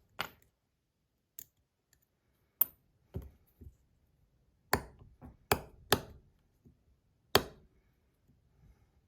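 Sharp clicks and taps at irregular intervals, about nine in all, from a stainless steel Rapt fidget slider being handled as its aluminum inserts are taken out.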